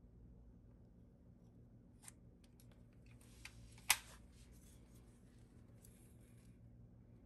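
Handling noise of a hot glue gun and a knife on a wooden board: a few light clicks, then soft scraping as the knife is laid down, with one sharp click about four seconds in. A faint steady hum sits underneath.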